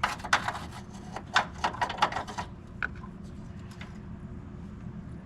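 Rapid scraping strokes scrubbing corrosion off a car battery terminal clamp, stopping about two and a half seconds in, followed by a few light ticks.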